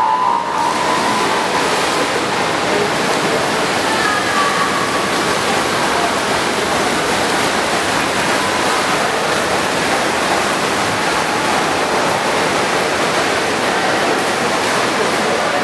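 Steady rushing wash of noise from swimmers splashing through a freestyle race in an indoor pool, mixed with crowd din.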